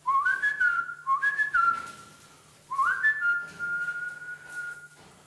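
Whistling: two short phrases of notes that step up in pitch, then a third that rises and holds one long steady note for about two seconds.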